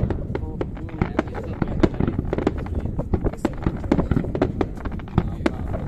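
Aerial fireworks bursting in quick succession: a rapid, irregular string of bangs and crackles from many shells at once, over a low rumble.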